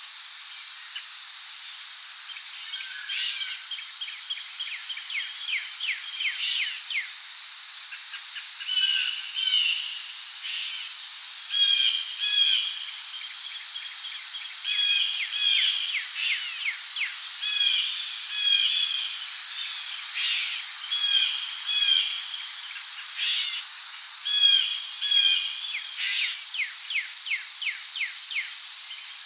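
Tropical rainforest ambience: a steady, high-pitched insect drone with many birds calling over it, in quick chirps, short repeated phrases and fast runs of falling notes.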